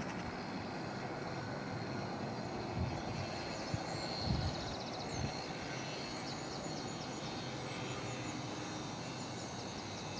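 Steady outdoor noise with a few low wind thumps on the microphone, about three to five seconds in, and faint high bird chirps from about three seconds in.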